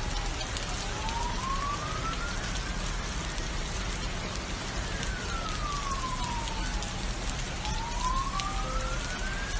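Steady rain hiss, with an emergency vehicle's siren wailing slowly. The siren rises, falls about halfway through, and rises again near the end.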